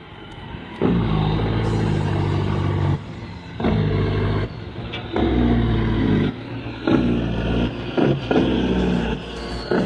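Engine revving in repeated bursts, its pitch climbing and falling with each burst and the loudness jumping up and down sharply between them.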